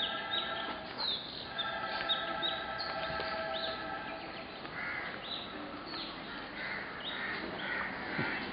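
Birds calling outdoors: many short, falling chirps, joined in the second half by harsher, repeated calls. A steady tone with several pitches sounds twice within the first three seconds.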